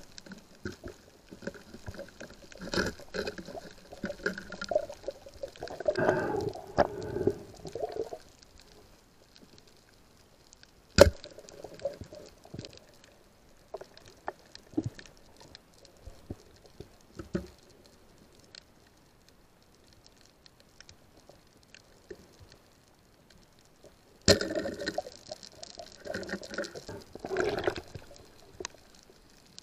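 Water sloshing and bubbling heard underwater, in irregular bouts at the start and again near the end, with a quieter stretch of scattered ticks and two sharp clicks between.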